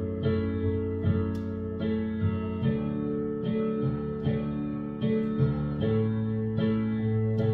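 Digital piano playing an instrumental passage: sustained chords struck steadily, a new one a little more than once a second, with no singing.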